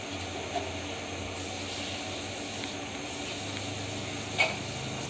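Steady background hiss with a low hum, broken by one short click about four and a half seconds in.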